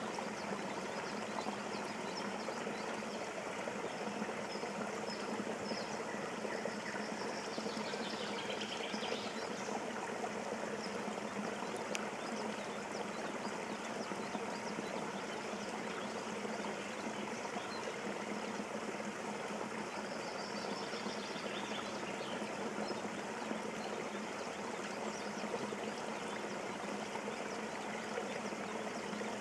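Steady rush of running water, an even unbroken wash.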